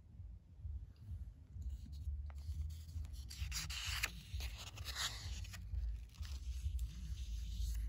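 Paper pages of an old newsprint comic book being handled by hand, rubbing against the palm and then turning. The dry rustle starts about a second and a half in and is loudest in the middle.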